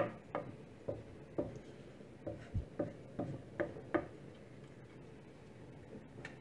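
A series of light clicks and taps in a kitchen, about two a second and unevenly spaced, stopping about four seconds in, with one dull low thump midway.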